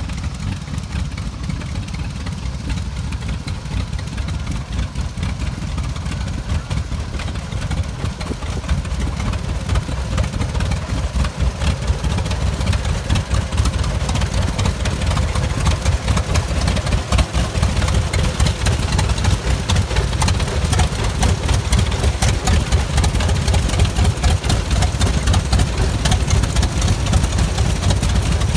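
Waterloo Boy tractor's two-cylinder kerosene engine idling with a steady, even beat, growing somewhat louder toward the end.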